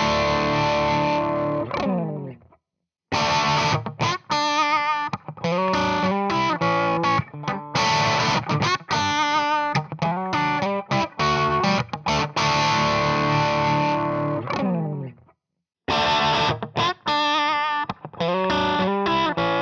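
Crunch-distorted electric guitar, a Fender Stratocaster through a Marshall JCM800 amp profile and simulated Celestion 1x12 speaker cabinets, playing a loop of chords and single notes. The chords ring out and stop twice, about three seconds in and near the end, and the loop starts again after a short silence each time. The last pass goes through a Celestion Neo 250 Copperback open-back 1x12 cabinet.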